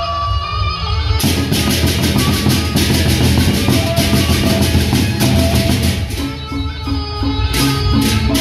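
Sasak gendang beleq ensemble playing: large two-headed barrel drums beating under ringing gong tones. About a second in, a rapid clashing of many hand cymbals joins. The cymbals thin out around six seconds in and come back near the end.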